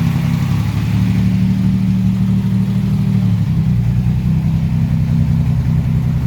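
An engine running steadily at a low, even note that shifts slightly in pitch a little past halfway.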